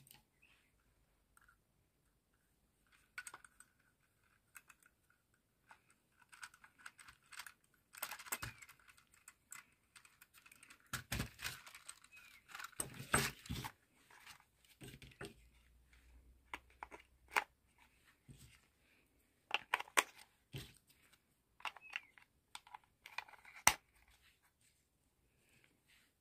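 Handling noise from a plastic toy RC rock-crawler car and its pistol-grip remote: irregular clicks and taps with plastic rustling. It is sparse at first and gets busier from about eight seconds in.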